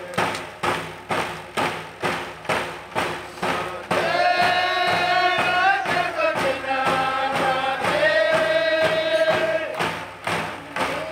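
Background music: a steady drum beat, about two beats a second, with voices singing long held notes from about four seconds in.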